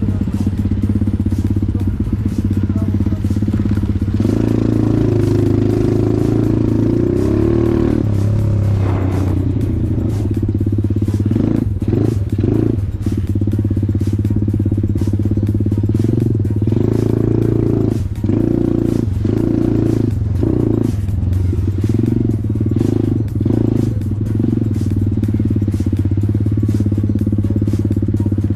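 Off-road motorcycle engine running under way, its revs rising and falling with brief throttle dips, amid scattered clicks and rattles.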